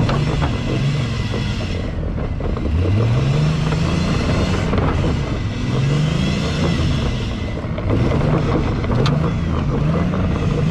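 Pickup truck's engine revving up and down about five times as its wheels spin in snow and mud without moving it: the truck is high-centered and only the wheels without traction turn.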